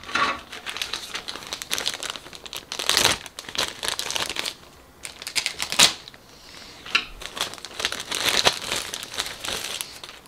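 Plastic bags of model kit parts crinkling as they are handled, in irregular bursts with a few sharper crackles.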